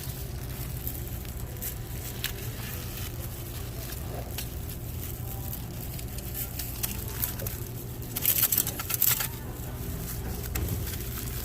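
Restaurant table ambience during a meal: a steady low hum with scattered small clicks, and a short burst of loud crackling, rustling handling noise about eight seconds in.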